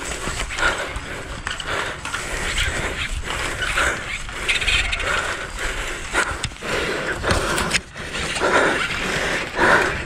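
Baitcasting reel being cranked to retrieve a lure, its gears whirring as the handle turns, over a low rumble of wind on the microphone.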